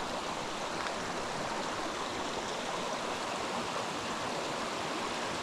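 A stream running over rocks: a steady rush of flowing water.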